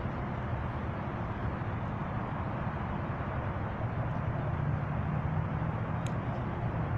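Steady engine and road noise of a moving car, a low hum over a constant rumble, growing a little louder about four seconds in. One short click about six seconds in.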